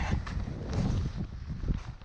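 Wind buffeting the microphone as a low rumble, with a few steps of rubber boots on wet ice as short sharp ticks.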